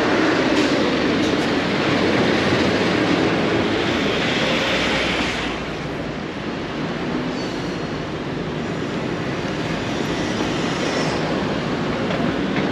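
City street traffic noise with a vehicle passing close by, loudest in the first half and easing off after about five and a half seconds.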